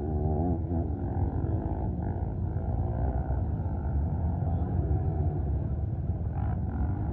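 Quad (ATV) engines running and revving on a dirt track, the pitch climbing and dropping as the throttle is worked, over a steady low rumble.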